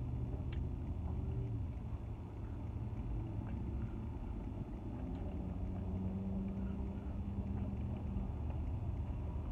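Steady low rumble of road traffic heard from inside a parked car, with a humming tone that comes in about halfway through and stops near the end.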